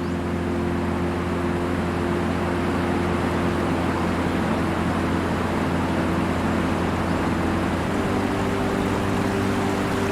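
Steady rush of a waterfall, with a drone's propellers humming steadily over it in several low tones that shift slightly in pitch about eight seconds in.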